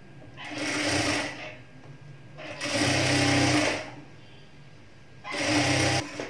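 Industrial sewing machine stitching a seam on a blouse piece in three short runs, the middle one the longest, with brief stops in between.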